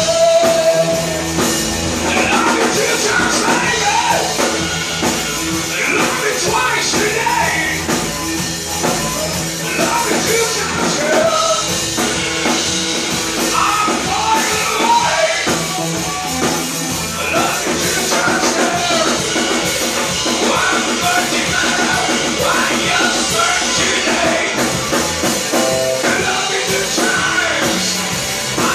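Rock music with a singing voice over drums.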